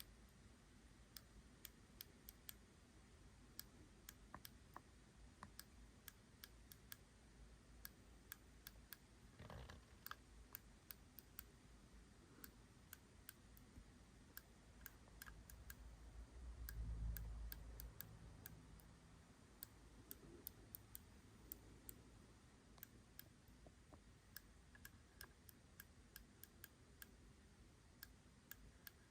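An IcePower 300AS1 amplifier module from a Kemper Power Kabinet clicking faintly while powered off: an irregular, oscillating run of small clicks, several a second. This is the fault being traced, a clicking the board makes only when switched off, which the owner links to oscillation near its power input. A brief low rumble comes about two-thirds of the way in.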